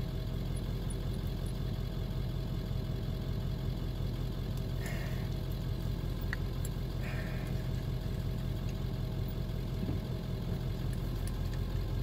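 Vehicle engine idling steadily, heard from inside the cab. A few faint short scrapes about five and seven seconds in come from a hand-turned tubular key cutter grinding a cut into a key blank.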